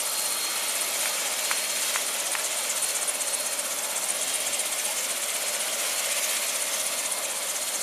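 Medical helicopter running on the ground with its rotors turning, a steady rushing engine-and-rotor noise, with a few faint clicks about one and a half to two and a half seconds in.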